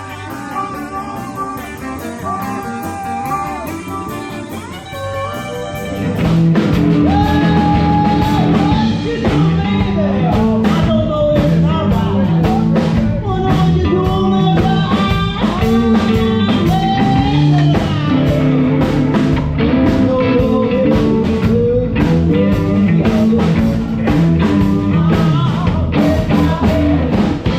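Background rock music with singing and guitar; a fuller band with drums comes in about six seconds in and the music gets louder.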